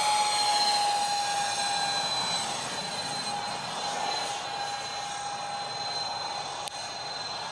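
Freewing Su-35 model jet's twin electric ducted fans whining at a steady high pitch in flight. The whine dips slightly in pitch and slowly grows fainter.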